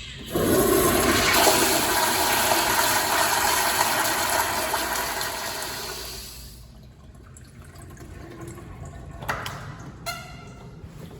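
Toilet flushing: a sudden rush of water starts just after the beginning and stays loud for about five seconds. It then dies away to a quieter flow of running water, with two brief sharper sounds near the end.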